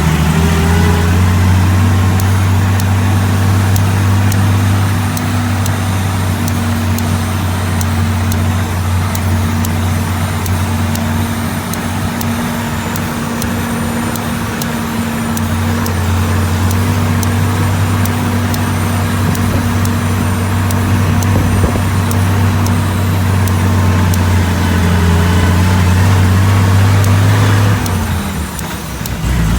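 1942 Dodge WC-52 weapons carrier's flathead straight-six engine running under way, a steady low drone. It picks up at the start and drops off about two seconds before the end.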